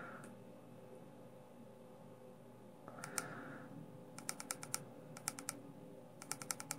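Fire button of an IPV D3 box mod being clicked in quick runs of about five sharp clicks, three runs in the second half, the way the mod's menu is worked.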